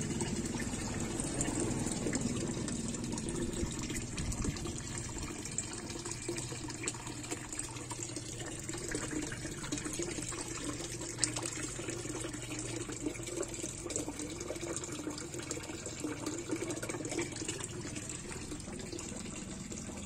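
A thin stream of water pouring from a pipe into a small koi pond, splashing steadily on the surface.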